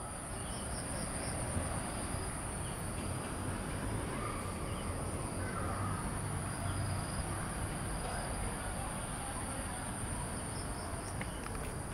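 Outdoor ambience with a steady, high-pitched insect chorus trilling without a break, over a low background rumble.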